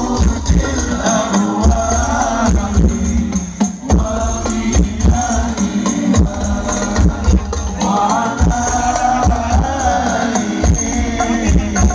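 Hadroh sholawat music with singing voices over frame drums and jingles, heavy in the bass, played loud over a large outdoor PA sound system with many subwoofers during a sound check.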